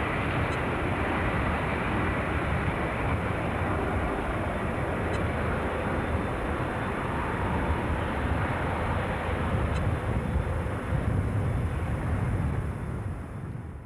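Aircraft engines at takeoff power as the plane accelerates for takeoff: a steady, heavy rumble that fades out at the very end.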